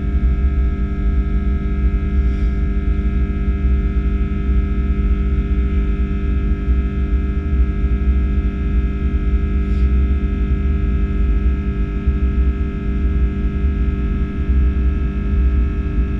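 Airbus A330-300's Rolls-Royce Trent 700 engines running steadily: a loud low rumble with a set of steady whining tones above it.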